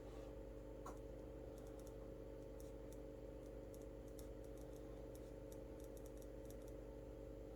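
A quick, irregular run of about twenty light clicks, in the way of typing, lasting about five seconds, over a steady electrical hum.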